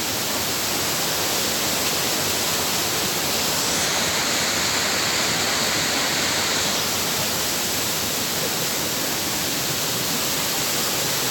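Steady rush of a river's cascading water, loud and even, with a hissier stretch in the middle for about three seconds.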